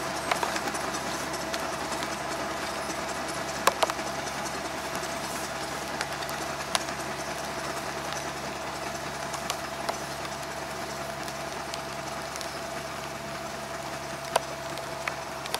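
An engine running steadily at idle, with a few short sharp knocks as a hoe strikes the soil.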